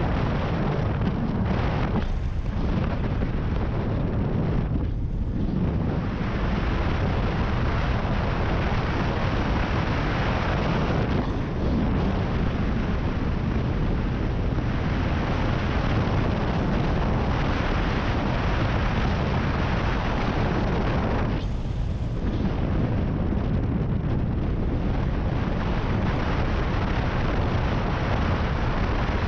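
Wind rushing and buffeting over the microphone on a cruiser motorcycle riding at road speed, with engine and road noise mixed in underneath. The rush eases briefly a few times.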